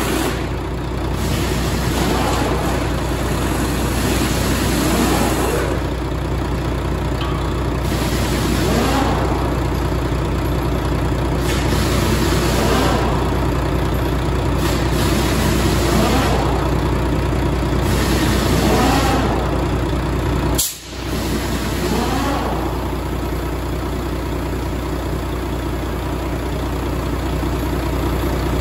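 Volvo VED12 12-litre inline-six diesel truck engine running, revved up and back down again and again, about every three to four seconds. There is one sharp click with a momentary drop in the sound about two-thirds of the way through.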